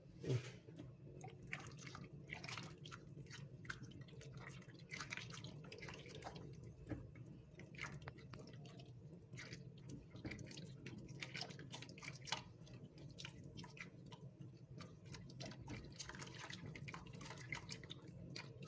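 Spatula stirring starch thickening in a pot of hot water: faint, irregular wet clicks and plops against the pan, over a steady low hum.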